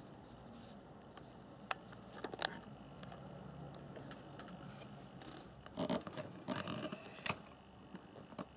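Scattered small handling sounds over quiet room tone: a few sharp clicks, the loudest about seven seconds in, and a patch of rustling and scraping just before it.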